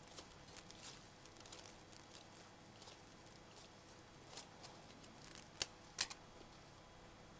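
Plastic grafting tape being pulled off the roll and wound tightly around a guava graft: faint, irregular crinkling and crackling of the stretched film, with two louder sharp snaps about half a second apart late on.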